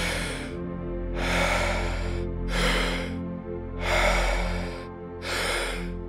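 Deep, paced Wim Hof power breathing: about two full breath cycles, each a long rushing breath followed by a shorter one, repeating roughly every three seconds. Under it runs a steady ambient music pad.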